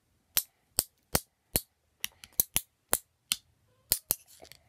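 A series of about a dozen sharp clicks: four evenly spaced at first, then quicker and irregular, some in close pairs.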